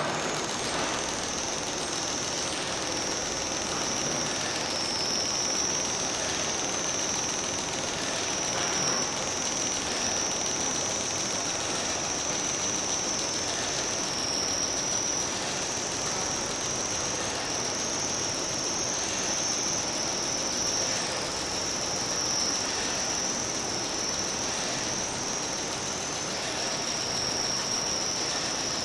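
Small electric motors of a found-object sound installation running together: a steady high-pitched squeal that wavers slightly in pitch, over a dense rattling hiss.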